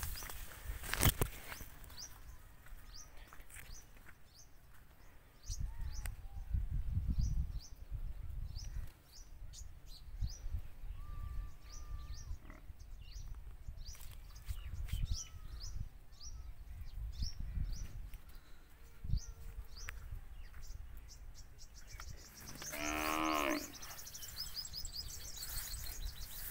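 Outdoor nature ambience: a small animal chirps over and over in short high notes, with low rumbles about six to eight seconds in. Near the end comes a louder animal call that falls in pitch.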